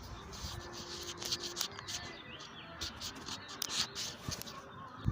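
Wind rumbling on the microphone, with scattered clicks and rustles and a few faint bird chirps.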